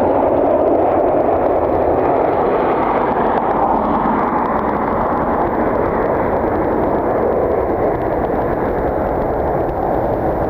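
Jet airliner engines running loudly with a steady roar that slowly fades.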